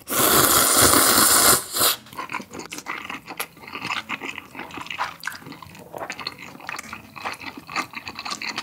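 Loud slurp of cold, sauce-dressed Paldo Bibimmyeon 2 instant noodles for about a second and a half. Close-miked wet chewing with small clicks follows for the rest.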